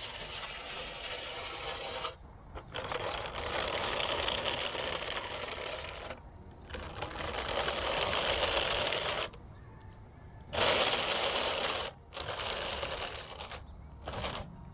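DJI RoboMaster S1 robot's roller (mecanum) wheels and drive motors running over asphalt. It stops and starts several times, with pauses of about a second between spells of driving.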